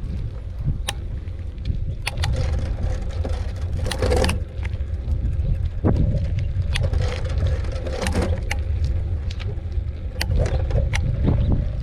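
Wind rumbling on the microphone during a bike ride, with frequent sharp clicks and rattles from the bicycle jolting over rough ground.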